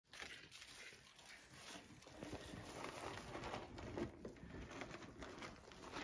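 Faint rustling and crackling of straw bedding, many small scattered ticks, as alpacas move and feed in it.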